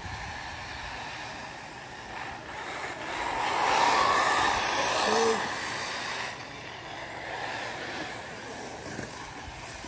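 Arrma Typhon 6S brushless electric RC buggies racing on a dirt track, a rushing whir of motors and tyres on dirt. It swells louder about three seconds in and eases off after about six seconds.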